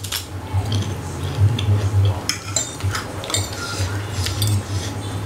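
Metal forks clinking and scraping on a ceramic plate in scattered short ticks, with the mouth sounds of two people chewing noodles and rice close to the microphone, over a low uneven hum.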